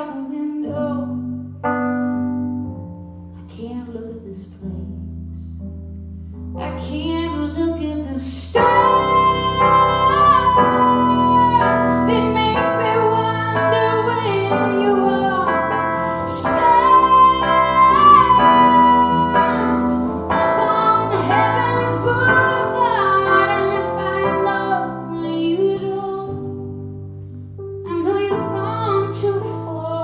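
A woman sings live over her own keyboard accompaniment. The keyboard chords play alone at first, then her voice comes in strongly about eight seconds in with long held notes, the loudest part of the passage.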